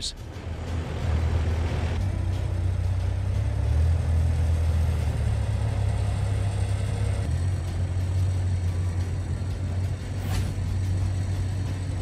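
Diesel engines of snow-clearing machines, a dump truck and tractor loaders, running with a steady low rumble. There is a short sharp knock about ten seconds in.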